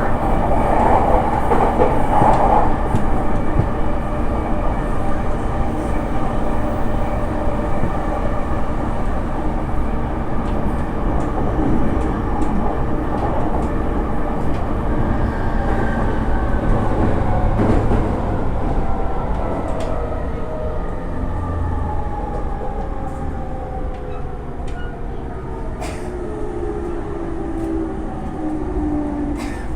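Running noise inside an E231-500 series electric train: wheels on rail and the MT73 traction motors' whine. Through the second half, the motor tones fall steadily in pitch as the train slows.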